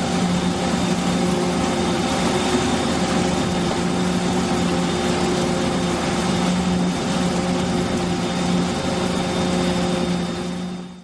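Mobile concrete batching plant's machinery running with a steady engine hum over a hiss, as wet concrete is discharged down its chute into a block mould. The sound tails off just before the end.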